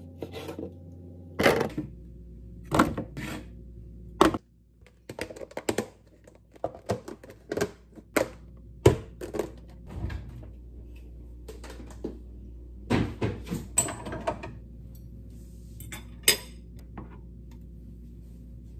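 A kitchen knife chops through honeydew melon onto a plastic cutting board with a few sharp knocks. These are followed by scattered clicks and knocks of plastic food containers, their lids and a plate being handled, over a low steady room hum.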